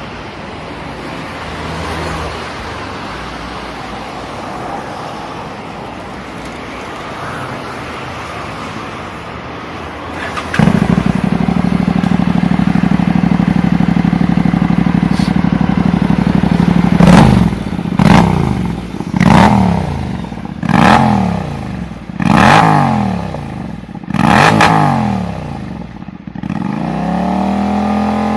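Honda NC700's 670 cc parallel-twin engine, through a Taylor Made Hurricane Evolution aftermarket sport exhaust, starting about ten seconds in after a stretch of background noise. It idles steadily, then is revved in a series of about six throttle blips, each rising and falling back.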